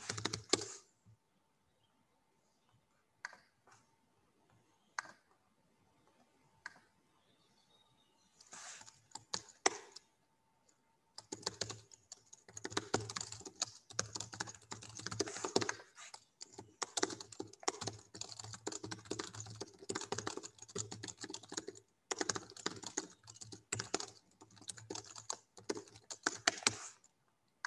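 Typing on a computer keyboard. A few scattered keystrokes come first, then rapid, continuous typing from about eleven seconds in.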